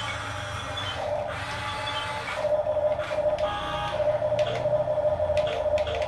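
Electric drive motors and gearboxes of a Huina 1569 remote-control bulldozer whining as it drives on its tracks, starting and stopping several times with a few clicks, and cutting off suddenly at the end.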